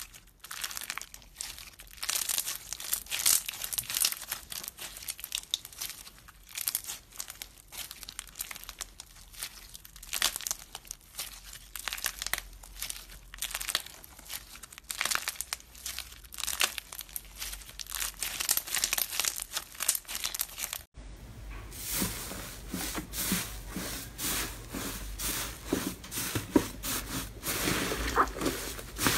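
Clear slime packed with beads being stretched and pressed by hand, a dense crackling and popping. About 21 seconds in it cuts to a thick purple-and-blue slime being kneaded and pressed, a fuller squishing with pops as air pockets break.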